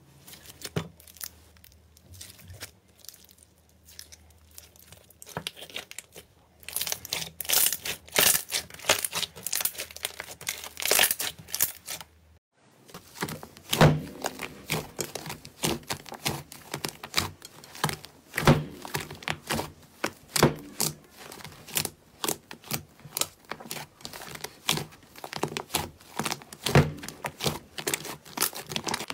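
Slime being kneaded and pressed by hands, making dense crackling, popping clicks that grow louder about six seconds in. After a brief break, thick green slime is squeezed and pushed in a glass bowl, with the same crackling and occasional soft thumps.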